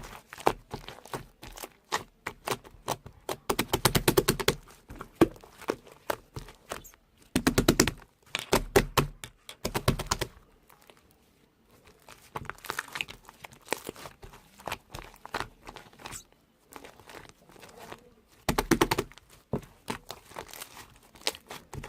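Handling noises: irregular sharp clicks and crackling, bunched into several dense rattling bursts, with a short quiet gap in the middle.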